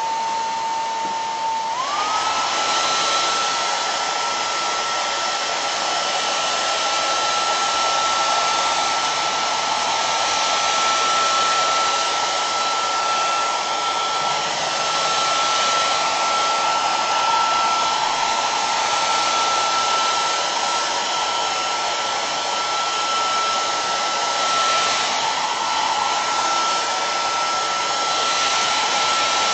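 Hand-held hair dryer blowing steadily, its motor whine stepping up in pitch about two seconds in and then holding. It is drying still-damp decoupage glue on a ceramic spoon.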